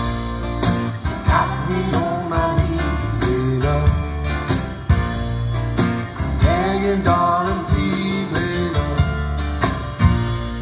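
Seeburg DDS 1 'Discotheque' speakers with Altec 811 horns, driven by an HH Scott LK 72 tube amplifier, playing a song: a singing voice over a steady beat and heavy bass.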